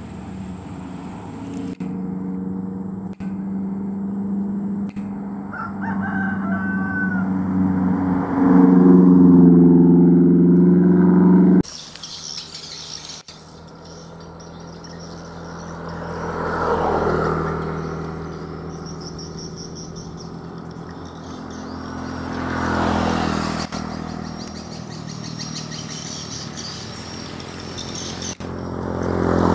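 A heavy diesel truck's engine drones, growing steadily louder for about ten seconds until the sound cuts off abruptly. Then two vehicles pass by, each swelling and fading, about 17 and 23 seconds in, with birds chirping between them.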